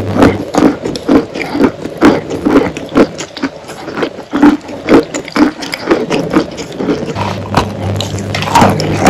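Wet chalk being chewed and crunched close to the microphone: irregular, sharp crunches about twice a second, with a fresh bite taken from the big chalk bar near the end.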